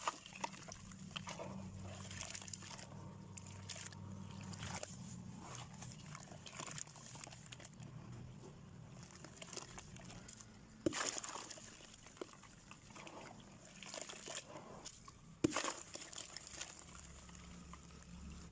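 Clumps of dry sand or cement crumbling, with soft scattered crackles and a few sharper snaps, the clearest about 11 and 15 seconds in.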